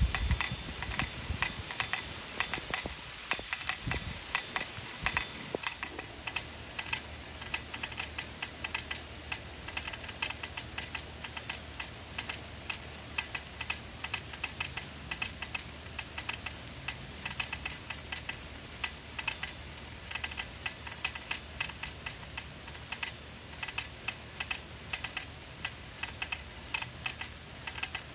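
Rain-O-Mat No. 11 brass ball drive sprinkler running: a rapid, slightly uneven ticking from the ball drive as it turns the nozzle, over the steady hiss of the water jets. It gets a little quieter about six seconds in.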